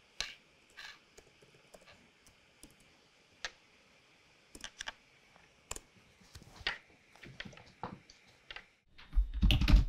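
Light keystrokes on a laptop keyboard: scattered, irregular taps with short pauses, getting louder and busier near the end.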